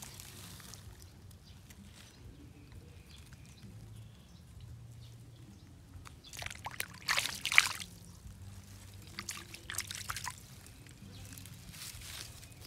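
Shallow water splashing and sloshing as a hand dips a small fish into it: short bursts a little past the middle, the loudest about seven and a half seconds in, and a few weaker splashes about two seconds later.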